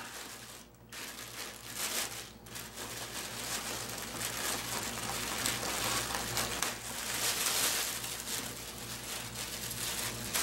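Clear plastic bag around a turntable crinkling and rustling as it is handled and pulled back, an unbroken rustle that grows somewhat louder in the second half.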